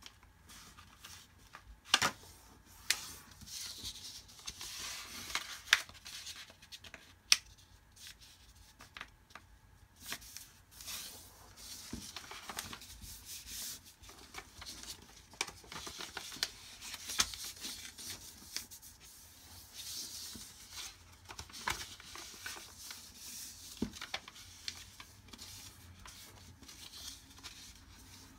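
A sheet of white paper being folded and creased by hand: rustling and rubbing as fingers press along the folds, with sharp clicks every few seconds.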